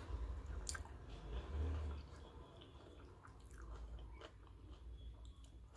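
Close-miked chewing of a mouthful of food, with scattered small wet mouth clicks and smacks.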